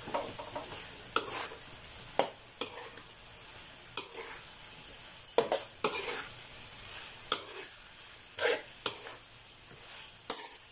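Spatula scraping and knocking against a wok in irregular strokes while fried fish pieces are stirred through sweet and sour sauce, over a steady low sizzle from the pan.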